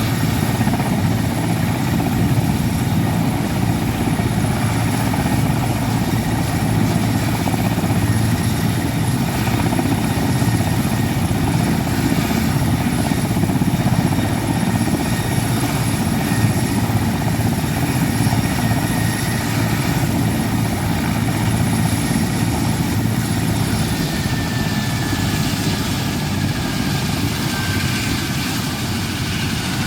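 Military helicopter flying, its rotor beating in a rapid steady pulse under a high turbine whine. In the last few seconds the whine falls a little in pitch and the sound eases slightly.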